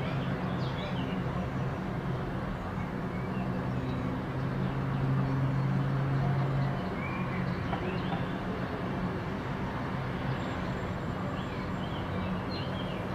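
Outdoor ambience with a steady low engine hum, louder for a few seconds mid-way and then easing, and a few short bird chirps.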